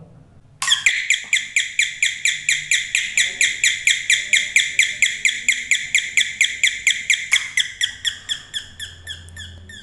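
Electronic doorbell sounding through its small speaker after its capacitor was replaced and a broken solder joint redone: a fast chirping tone, about six short falling chirps a second, which starts about half a second in. Near the end the chirps slow and fade.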